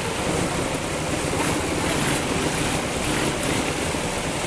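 Go-kart engines running under way, heard onboard a kart in a pack of karts: a steady, noisy drone with no breaks.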